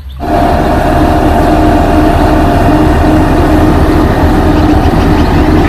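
Bomag single-drum road roller's diesel engine running steadily under way, a loud, even drone with a constant hum that starts abruptly just after the beginning.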